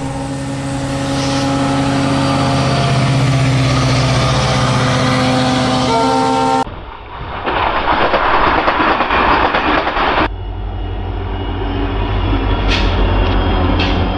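Three cuts of passing trains. First, a diesel locomotive's multi-tone horn sounds one long chord as the train approaches. About six and a half seconds in, a Vande Bharat electric train set rushes past at speed; about ten seconds in, an Indian Railways diesel locomotive rumbles past close by, with two short high-pitched squeaks near the end.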